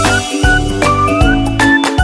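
Upbeat background music for children, with short melody notes over a steady thumping beat.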